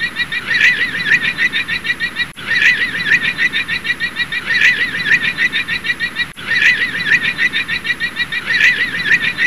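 Llama calling: a shrill, rapidly warbling cry of many quick notes a second, repeated over and over. It is a short recording looped about every four seconds, with abrupt cuts between the repeats.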